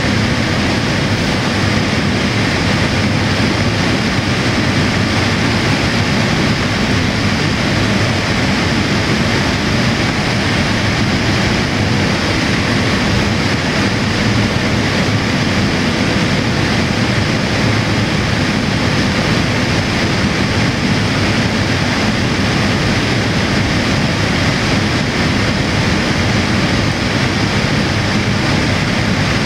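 Steady in-flight cabin noise of a Boeing 787-8 airliner heard from a window seat over the wing: an even rush of Rolls-Royce Trent 1000 turbofan engines and airflow past the fuselage.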